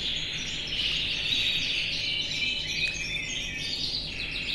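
Canaries singing and chirping in a continuous, overlapping chorus of high, fast trills and rolled notes.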